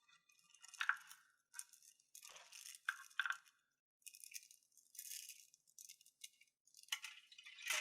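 Small crystals rattled and clinked together in a handful of short, irregular shakes, with brief pauses between them.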